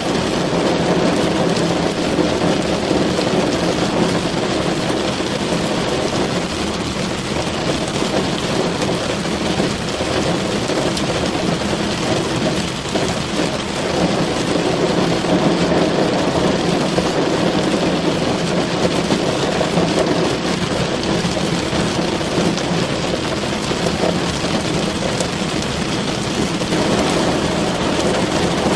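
Steady heavy rain drumming on a car's roof and windows, heard from inside the car as a dense, even patter.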